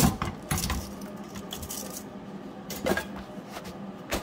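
A wire brush's last scrubbing stroke across an aluminum weld bead right at the start, then a few scattered light metallic clinks and knocks, about half a second in, near three seconds and near the end.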